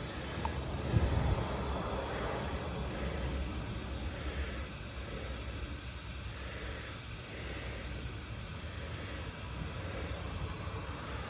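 A steady, even hiss with a low rumble underneath and a faint click about half a second in.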